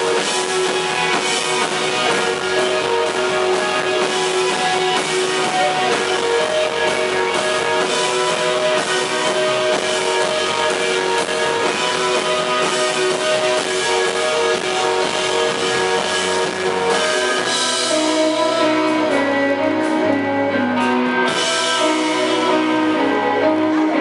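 Live rock band playing an instrumental passage: electric guitar, keyboards and drums. About three-quarters of the way in, the full band drops back to sparser held notes that step in pitch as the song winds down.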